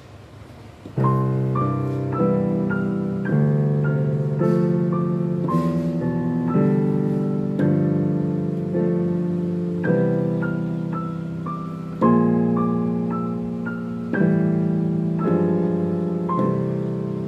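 Piano duet on a Yamaha digital piano: a simple melody over sustained low chords in a steady pulse, starting about a second in.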